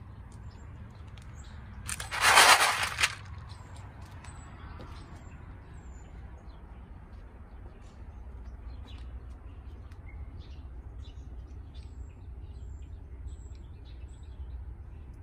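Small birds chirping faintly in short high notes, over a steady low outdoor rumble. A loud rushing noise lasting about a second comes about two seconds in.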